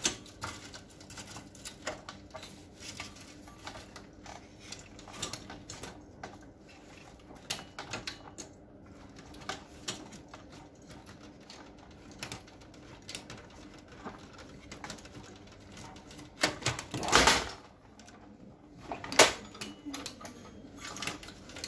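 Handling noise from an HP LaserJet P2055dn printer: clicks, taps and light scrapes of plastic and sheet-metal parts as the power supply board is worked into the chassis and aligned. A louder scrape comes near the end, then a sharp knock about two seconds later.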